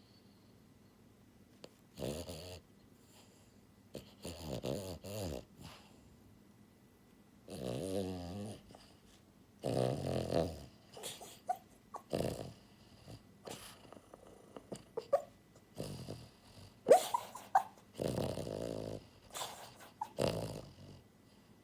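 French bulldog snoring in her sleep: about ten irregular loud snores and snorts, each up to a second and a half long, with a few short rising squeaks mixed in. The heavy snoring is typical of the breed's short, flat-faced airway.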